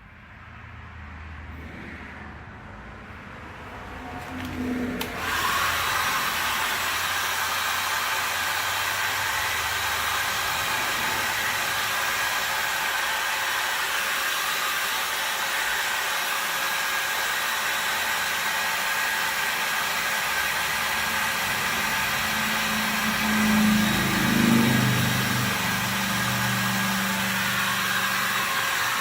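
A handheld electric hot-air blower switches on about five seconds in and runs steadily with a fan whine, heating the vinyl decal film. It cuts off at the very end.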